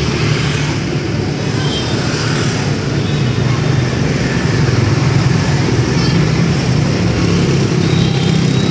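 Steady road traffic noise, motorbike and car engines running continuously, with a low hum underneath.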